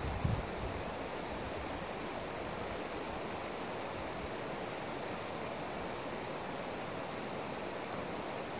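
Steady, even outdoor hiss at a constant level, like a light wind, with two brief low thumps right at the start.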